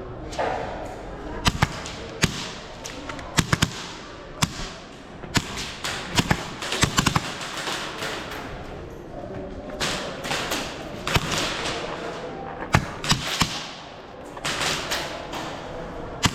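Airsoft guns firing: scattered single shots and short quick strings of sharp cracks.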